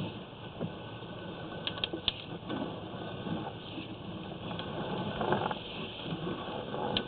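Irregular rustling and scraping with a few sharp clicks as a sewer inspection camera's push cable is fed down a drain line.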